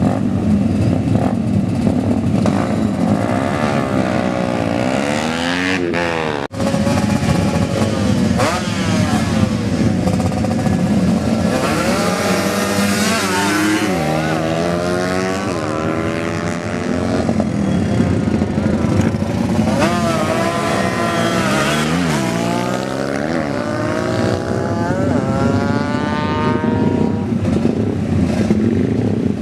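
Racing motorcycles at full throttle, engines repeatedly revving up and dropping in pitch, several engines at once. There is a short break in the sound about six seconds in.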